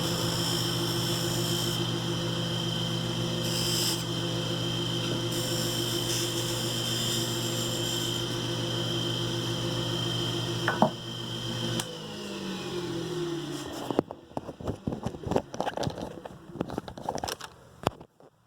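Wood lathe motor running steadily, with a sharp click near eleven seconds in. Its hum then falls in pitch as the lathe spins down, followed by scattered clicks and knocks of handling.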